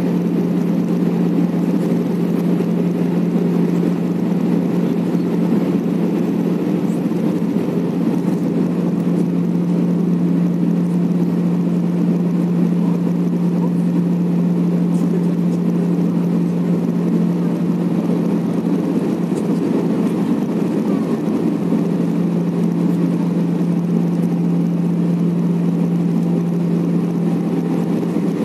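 Steady cabin drone of an Airbus A319 in descent, heard inside the cabin beside the wing: jet engine and airflow noise with a constant low hum.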